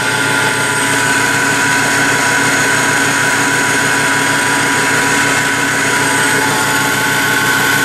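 Electric motor turning a coupled generator, running steadily at speed with a constant hum and a steady high whine over it. The motor is powered by back EMF captured from a pulsed low-resistance coil.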